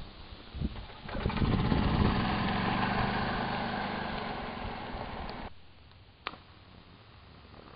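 Gasoline golf cart's small engine running, loudest about two seconds in and then fading, until it cuts off abruptly. A single sharp click follows shortly after.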